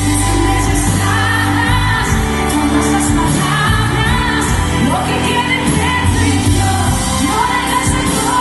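Live pop band playing loudly through a concert PA with a woman singing lead, heavy bass underneath, as heard from the audience.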